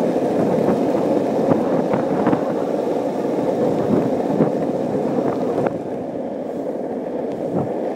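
Steady rushing of wind and rolling road noise while riding down a street at about 40 miles an hour, with a few light knocks; it eases a little after about six seconds as the ride begins to slow.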